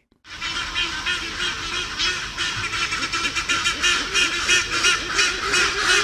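A group of black-and-white-casqued hornbills calling together: a continuous, overlapping chorus of rapid repeated calls, made resonant by the birds' large beaks.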